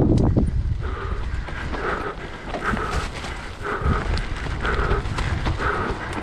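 Mountain biker panting hard, about one heavy breath a second, over the rumble and rattle of the bike's tyres on a dirt trail strewn with leaves.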